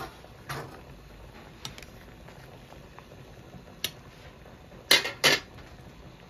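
Pot of water at a rolling boil, bubbling steadily. Metal tongs click against the stainless steel pot a few times, with two sharp clacks close together about five seconds in.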